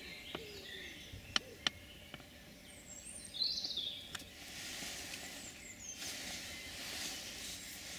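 Woodland birds calling, with a short burst of chirps about three and a half seconds in. Two sharp clicks close together about a second and a half in are the loudest sounds.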